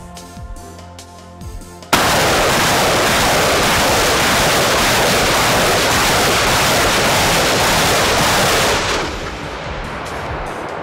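WR-40 Langusta multiple rocket launcher firing a salvo of 122 mm rockets: a sudden, loud, continuous rush of launch noise starting about two seconds in and dropping away about seven seconds later. Background music plays before and after it.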